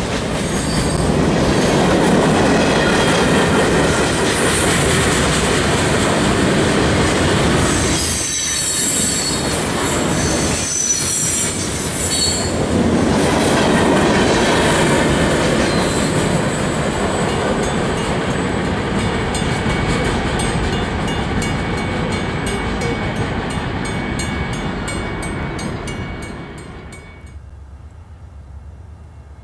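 Freight cars rolling past close by: a steady rumble and rattle of steel wheels on rail. High wheel squeal comes in about eight to twelve seconds in, and a run of evenly spaced clicks follows later. Near the end the sound drops suddenly to a much quieter, distant rumble.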